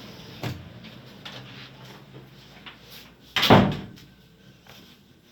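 A door shutting with one heavy thud about three and a half seconds in, after a lighter knock about half a second in.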